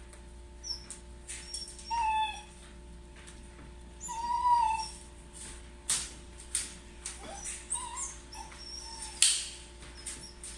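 Shiba Inu whining in short high-pitched whines, two longer ones about two and four seconds in and briefer ones near the end, the crying of a dog left home alone. Scattered sharp clicks and rustles run between the whines, the loudest near the end.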